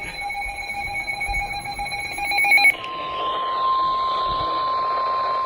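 NOAA Weather Radio alert tones over a receiver's hiss: the buzzy, stuttering digital SAME header data burst that opens an EAS message, cut off about two and a half seconds in by the steady single-pitch 1050 Hz warning alarm tone, which sounds to the end.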